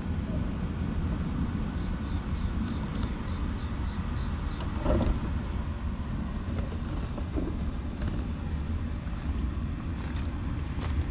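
Steady low rumble of outdoor background noise, with a faint high steady whine above it and a brief louder swell about five seconds in.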